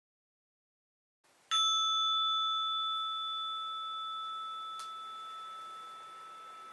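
An orin, a Japanese Buddhist bowl bell, struck once about a second and a half in, ringing with two clear high tones that slowly fade.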